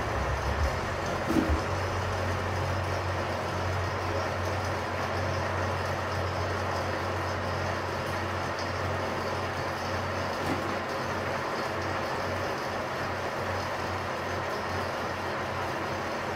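Milling machine running steadily with a slitting saw slowly cutting through a metal tube at a low spindle speed of about 50 RPM under power feed, with flood coolant: a constant mechanical hum from the motor and drive, with a brief tick about a second in.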